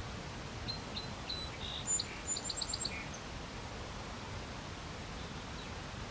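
A small songbird calling: a few short high chirps, then a quick run of about five high notes, between one and three seconds in, over steady low outdoor background noise.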